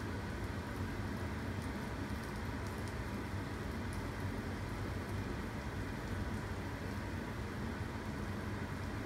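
Steady low household hum and hiss, with a few faint ticks.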